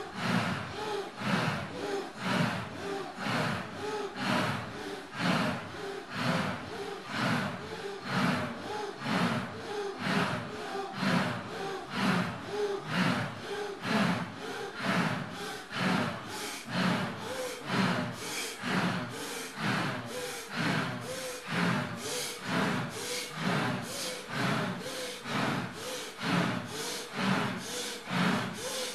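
A group of people breathing hard and fast together in a steady rhythm, about two loud breaths a second, with some voice in the breaths.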